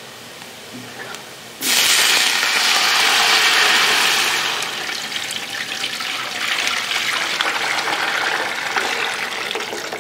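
Water poured into a large aluminium pot of ghee-fried onions and whole spices. It rushes in suddenly about two seconds in, is loudest at first, then eases off and keeps running at a lower level.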